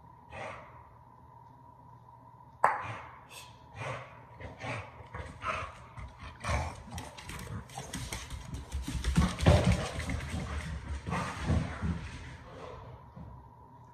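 A dog moving and playing with a toy on a tile floor: its claws clicking and scrabbling on the tiles, with a busier stretch of scuffling and dull thumps in the middle. It starts with a sharp click after a couple of quiet seconds.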